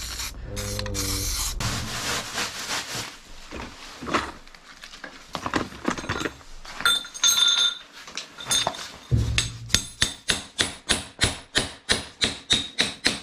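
A spray-paint can hisses briefly. Then come irregular scrapes and knocks, and from about two-thirds of the way in an even run of sharp hammer blows, about three or four a second, as a hammer is worked against a floor drain.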